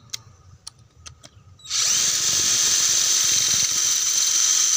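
A few faint clicks, then about 1.7 s in a Benz Werkz BZ-8004 cordless battery drill starts and runs steadily at full speed, its motor whining as the bit grinds into a cast concrete wall.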